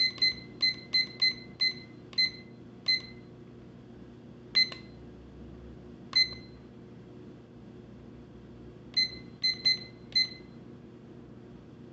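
Key-press beeps from a La Crosse Technology W88723V2 alarm clock, one short high beep for each press of its setting buttons as the month and date are stepped forward. About eight quick beeps in the first three seconds, single beeps about four and a half and six seconds in, then a run of four near the end.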